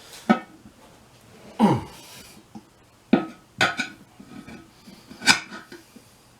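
Steel tire spoons clanking and scraping against the wheel rim as they lever the tire bead over its edge, a handful of sharp metal knocks a second or so apart.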